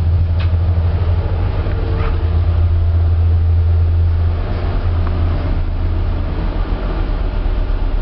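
Passenger lift travelling inside a car ferry: a steady low machinery hum with a few light clicks and knocks from the car. The hum eases slightly about four seconds in as the lift slows.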